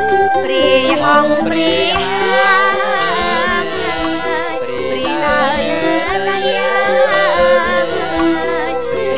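Traditional Khmer ensemble music: a voice sings a wavering, ornamented melody over bamboo flute and hammered dulcimer (khim), the singing coming in about half a second in.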